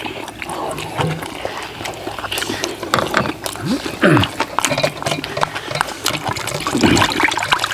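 Eating sounds: metal spoons clicking and scraping against stainless steel bowls, with chewing and slurping mouth sounds.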